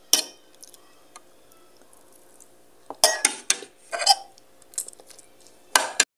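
Metal fork and spoon scraping and clinking against a ceramic plate while eating, in a few short clusters: once at the start, several around three to four seconds in, and once more near the end.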